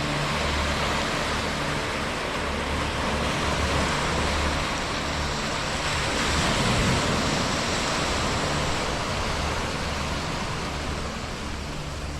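A steady rushing noise, with low rumbling buffets coming and going about once a second.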